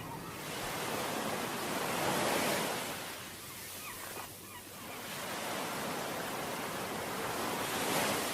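Beach surf and wind: a steady rush of noise that swells and ebbs twice, loudest about two seconds in and again near the end, as waves wash in on the shore.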